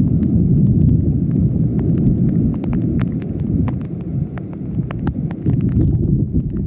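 Wind rumbling on the microphone over floodwater running down the street, with scattered light ticks of raindrops striking close by.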